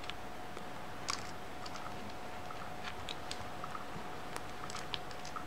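Quiet room tone with a faint steady hum and scattered light clicks and taps: handling noise from fingers on a capacitor's leads and a digital multimeter, and the camera being moved.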